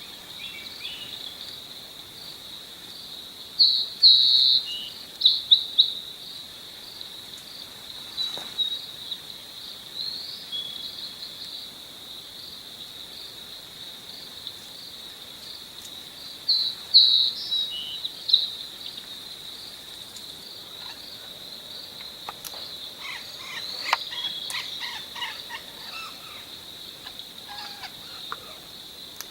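A steady, high insect drone like crickets or cicadas, with loud bursts of short, high bird calls about four seconds in and again around seventeen seconds, and a softer run of chirping later on.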